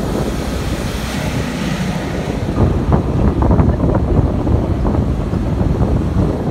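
Wind buffeting the microphone, a loud, uneven low rumble with gusty flutter, together with the running noise of a moving vehicle.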